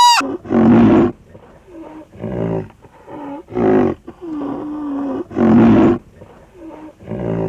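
A large animal giving a series of low, rough calls, about six of them with short pauses between.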